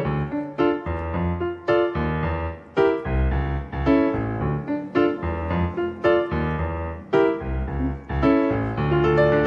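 Background music: a keyboard piece with piano-like notes and chords struck in a steady rhythm, with no singing.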